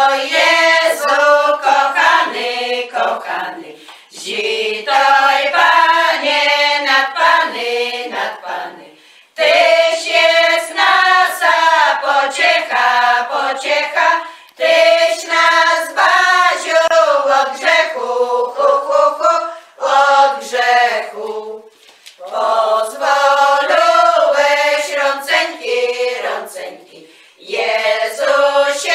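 A women's folk singing group singing a Polish Christmas carol (kolęda) a cappella, in sung lines broken by short breathing pauses.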